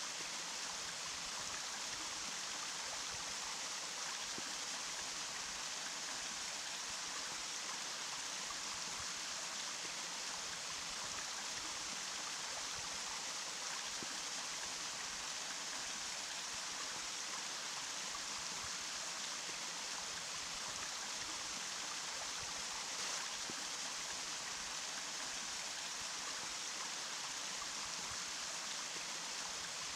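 Running water rushing and splashing steadily, a bright, even hiss that does not change.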